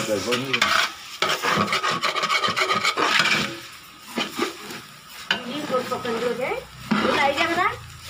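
A long metal spoon stirring rice through chicken masala in a large metal biryani pot, scraping and rasping against the pot in repeated strokes.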